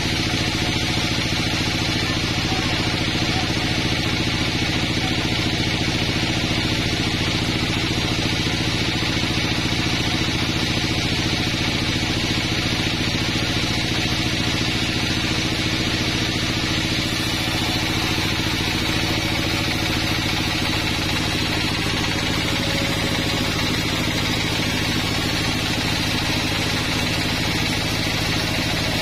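Sawmill band saw ripping a pine plank: a steady machine hum with the hiss of the blade cutting through the wood, unbroken throughout.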